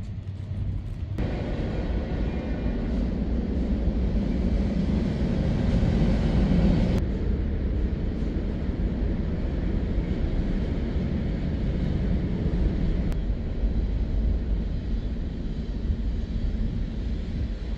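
Freight train rumbling steadily at close range. The sound is louder for a stretch from about one to seven seconds, then drops abruptly.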